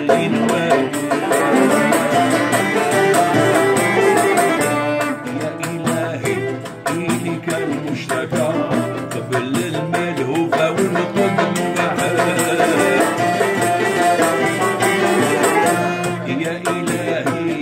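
Algerian Andalusian ensemble music, mainly instrumental, with a jingled frame drum (tar) keeping the beat with frequent sharp strikes.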